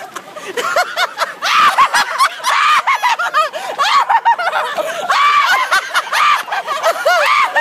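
Several people laughing in many short high-pitched bursts that overlap, with some shouting mixed in.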